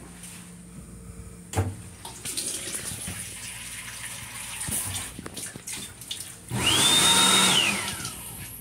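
Train restroom faucet running a thin stream into the sink basin, with a sharp click about a second and a half in. About six and a half seconds in comes a loud rushing noise lasting just over a second, with a whine that rises, holds and then slides down.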